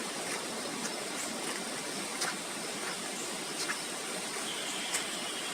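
Steady rushing of a river flowing over rocks below a waterfall, with a few faint scattered clicks and a brief faint high tone near the end.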